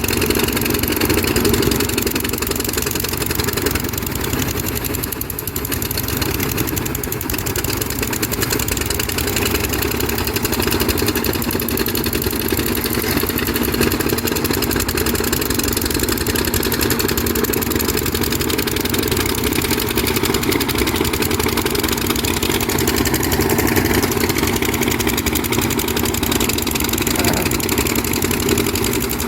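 Kobelco SK200 hydraulic excavator's diesel engine running steadily at a constant, even pitch.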